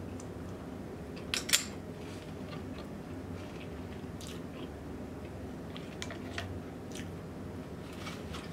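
Close-miked chewing and mouth sounds of a person eating a seafood boil, with a couple of sharp wet clicks about a second and a half in and a few fainter ones later, over a steady low hum.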